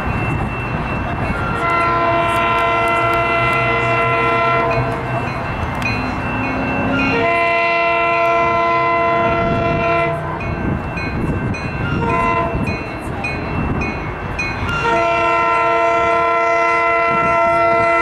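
Commuter train horn sounding a chord of several notes from the leading cab car: two long blasts, a short one and a final long one, the grade-crossing signal pattern. Under the horn the train rumbles along the track as it approaches.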